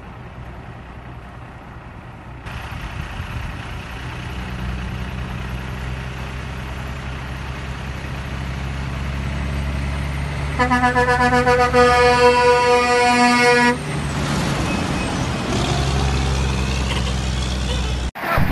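Tanker semi-truck's diesel engine running as the truck drives up and passes, growing louder as it nears. A horn sounds in one blast of about three seconds a little past the middle, the loudest sound.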